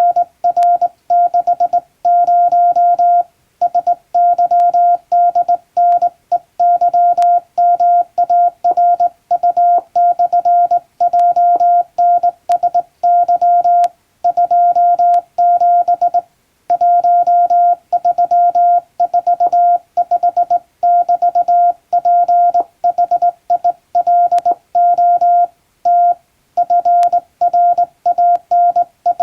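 Morse code sent by hand on a straight key: a single steady beep keyed on and off in dots and dashes, with brief pauses between words.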